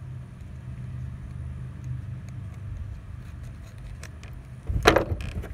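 A car engine idling with a steady low hum, and about five seconds in a sharp crackle and rip of a plastic bait package being pried open with a key.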